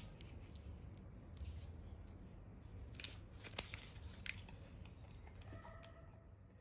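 Faint crinkles and ticks of a foil-lined plastic snack wrapper being handled, a few scattered sharp ones over several seconds, over a low background hum.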